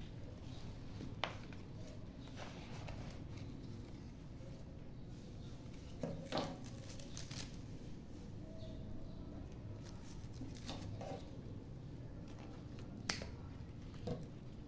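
A few sharp snips and clicks of small scissors trimming orchid leaves, with leaves rustling as hands work through the plant. About five separate clicks, spread out, the loudest about a second in and about thirteen seconds in.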